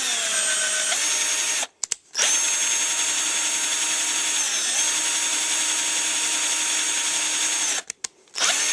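Electric drill running freely at speed with a steady whine. It stops briefly about two seconds in, runs again with a slight drop in pitch midway, then stops and restarts near the end.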